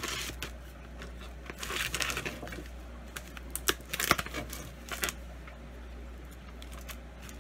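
Packing tape being cut with scissors and torn off a cardboard shipping box: irregular crinkling, tearing rasps with a few short sharp clicks, the loudest about four seconds in.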